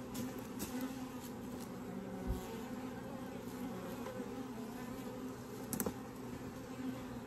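Honeybees buzzing steadily around an open Layens horizontal hive, with a couple of faint knocks.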